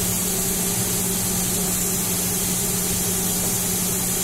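Hawkins Classic 1.5-litre aluminium pressure cooker venting steam through its pressure regulator, a steady hiss over a steady low hum: the cooker has come up to pressure.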